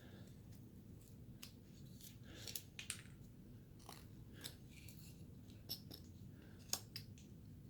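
Hand carving blade cutting basswood: faint, irregular snicks and scrapes as small chips are pared away, with a few sharper cuts standing out.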